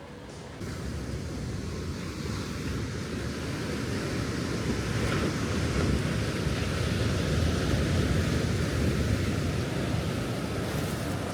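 Sea surf washing ashore, with wind rumbling on the microphone. It starts abruptly about half a second in, swells louder through the middle and eases near the end.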